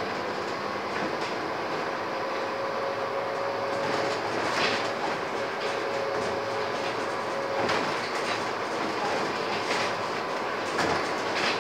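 Cabin noise of a Scania N230UD double-decker bus on the move: its five-cylinder diesel and drivetrain running under way with a faint steady whine, body and fittings rattling, and several knocks as it rides over the road.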